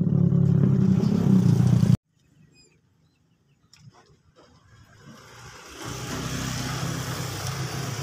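Motorcycles passing on a road. One engine runs loud and steady, then cuts off suddenly about two seconds in. After a few near-silent seconds with faint clicks, another passing vehicle grows louder over the last few seconds.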